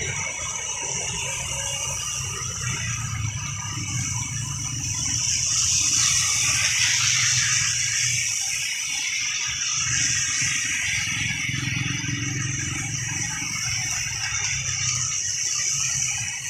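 Cars and motorcycles passing on a wet road, their tyres hissing through the water on the asphalt over a low engine hum. The tyre hiss swells loudest about six seconds in as a vehicle goes by.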